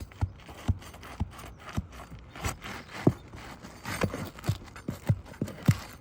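Pry bar worked under an asphalt roof shingle to free the nails still holding it: a run of dull knocks, about two a second, with scraping between them.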